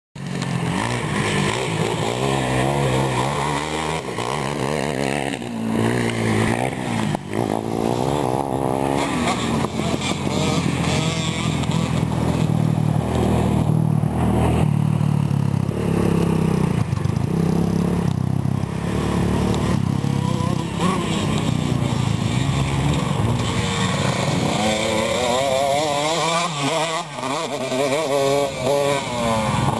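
KTM SX 150 two-stroke motocross bike engine being ridden, revving up and down again and again so that its pitch keeps rising and falling.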